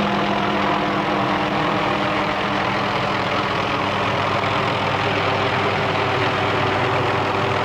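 Steady engine and rotor noise of a news helicopter, a constant drone with a steady hum that does not change.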